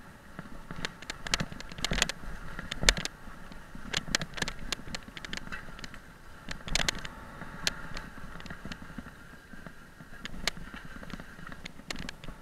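Off-road motorcycle ridden over a rough dirt trail: irregular knocks and rattles as the bike and its onboard camera jolt over bumps, the loudest a little under three seconds in, over a faint steady engine note.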